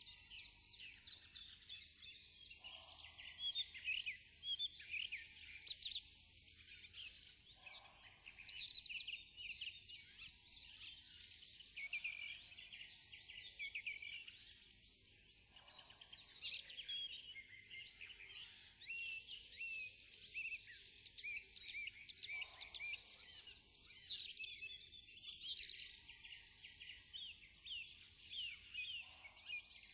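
Dense chorus of small birds chirping and twittering without a break, with a lower call coming in every several seconds.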